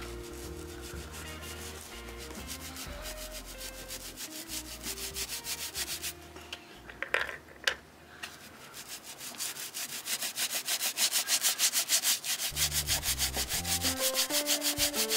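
Rapid back-and-forth scrubbing on the welt of a leather work boot, as the welt is cleaned and treated against hydrolysis. The strokes are even and quick, and they grow louder and more vigorous in the second half.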